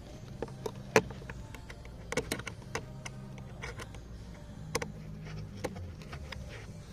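Scattered light clicks and knocks of plastic parts, a wiring connector and its harness being handled under a car's dashboard beside the heater housing, the sharpest click about a second in, over a low steady hum.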